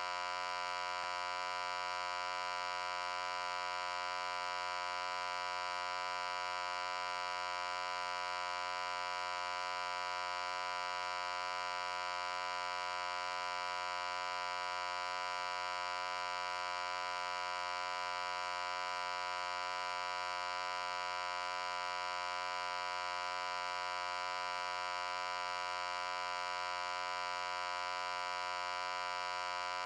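A steady, unchanging buzzy hum: one electrical-sounding tone with many overtones, brightest in the middle and upper range.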